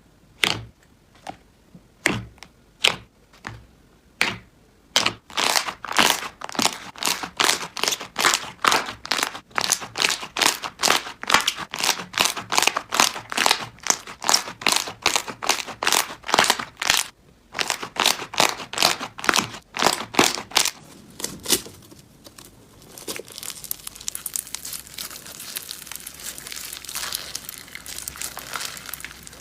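Slime being pressed and squeezed by hand: a run of sharp sticky clicks and pops, a few at first, then two or three a second. In the last third it changes to a steady crackling crinkle.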